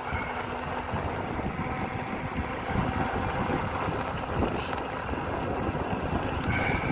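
Strong, gusty wind buffeting the microphone as a fluttering rumble over a steady rushing noise.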